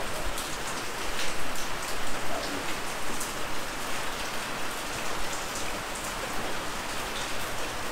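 Steady rain falling, with individual drops heard as many small ticks.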